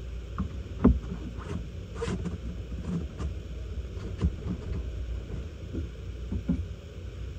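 A string of irregular knocks and clicks, the loudest about a second in, over a steady low rumble.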